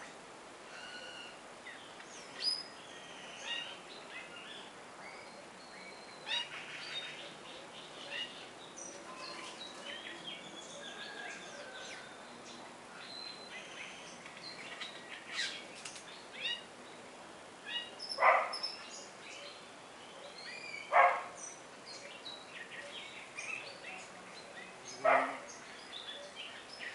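Several birds calling: a scattered mix of short chirps and thin whistles, with three loud, harsh calls a few seconds apart in the second half.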